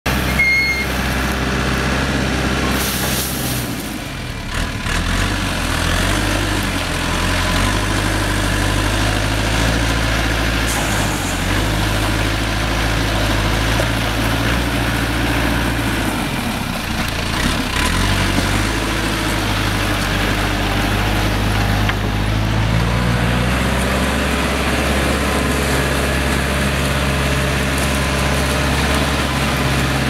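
JCB 212S backhoe loader's diesel engine running, its pitch shifting a few times as the engine speed changes, with a brief high hiss about three seconds in.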